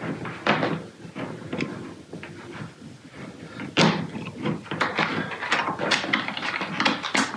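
Gaming chair parts knocking and clicking as they are handled and fitted at the armrest. The knocks come irregularly, with the loudest about four seconds in and again near the end.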